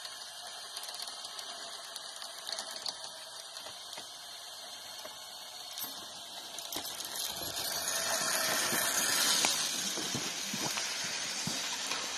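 Steel cable running through the cable rocket's pulleys as the log carriage travels along the line: a high, steady hiss with faint ticks, growing louder from about seven seconds in and peaking around nine seconds.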